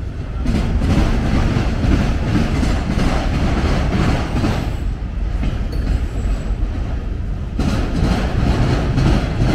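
Autorack freight cars rolling past on the rails: a loud, steady rumble of steel wheels with recurring clacks as they cross the rail joints.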